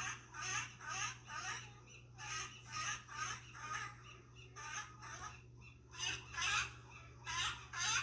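Seal barking sound effect: a run of repeated hoarse barks, about one to two a second, with short pauses between groups.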